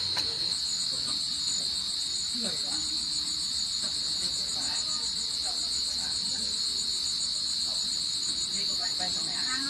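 Insects chirring steadily: a continuous high-pitched shrill with a faster, rapidly pulsing trill above it.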